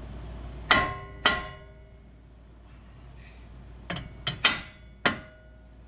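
Sharp metallic clanks with a brief ringing after each, from tools and steel suspension parts striking as a car's lower control arm is worked out. Two come about half a second apart near the start, then four in quick succession in the second half.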